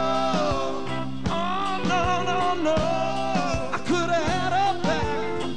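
Live rock band playing: electric guitar, bass and drums with keyboard, and long held notes sung over them.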